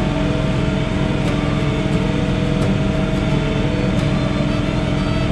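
John Deere 3046R compact tractor's diesel engine and front-mounted snowblower running steadily under load, heard from inside the closed cab as an even drone with a steady hum.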